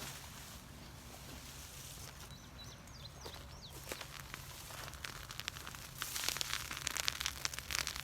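Wood fire crackling and popping, with a quick run of sharp snaps that sets in about six seconds in. A few faint bird chirps are heard before that.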